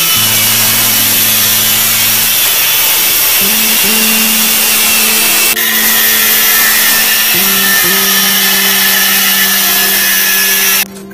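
Angle grinder running with a loud, steady hiss, stopping abruptly near the end.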